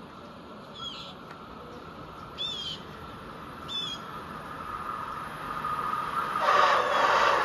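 Motorised LEGO passenger train running on plastic track, its motor whine and wheel noise growing louder as it approaches, loudest near the end. Earlier, three short high chirps sound about a second and a half apart.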